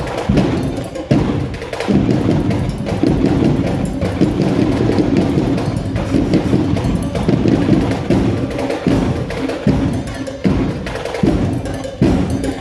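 Live drum line playing a steady, driving cadence: deep drum hits with sharp clicks on top.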